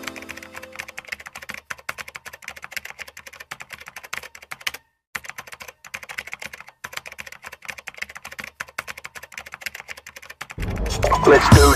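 Rapid computer-keyboard typing clicks, a typing sound effect, with a brief break about five seconds in. Loud music cuts in near the end.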